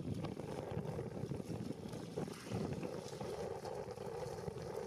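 Steady low rush of river water from rapids, with wind buffeting the microphone.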